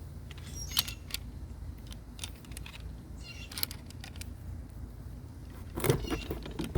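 Scattered metallic clicks and knocks of 16-inch tongue-and-groove pliers being worked open and fitted onto a water pump, over a low steady rumble.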